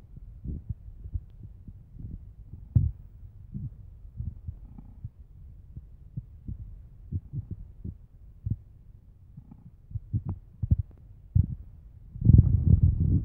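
Irregular low, muffled knocks and rubbing from a marker being worked across a sheet of paper on a table while the other hand holds the sheet down, with a louder rumbling bump about twelve seconds in.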